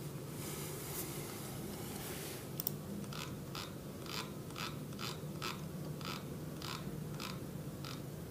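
Computer mouse clicking at a desk, a sharp click and then a steady run of light clicks about two a second from about three seconds in, over a low steady hum.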